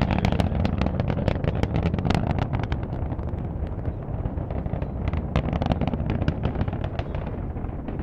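Space Shuttle Atlantis climbing after liftoff, heard from several miles away: a deep, steady rumble from its solid rocket boosters and main engines, shot through with rapid sharp crackles.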